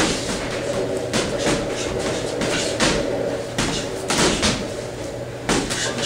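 Gloved strikes landing on pads: a string of sharp slaps and thuds, about ten, at uneven intervals.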